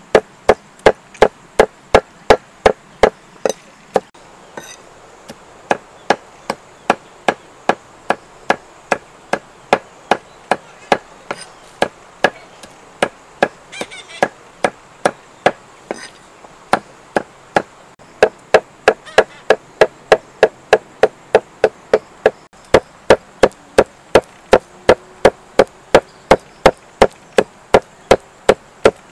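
Cleaver chopping steadily on a thick wooden chopping block, mincing fish into paste, about two to three strokes a second with a short pause about four seconds in.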